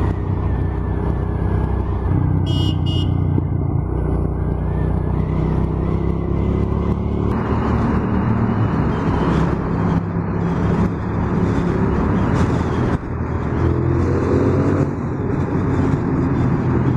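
Suzuki SV650's V-twin engine under way with wind rush on the helmet microphone, its pitch rising twice as the bike accelerates. The sound grows louder and fuller once the bike enters a road tunnel about seven seconds in. A short high beeping about two and a half seconds in.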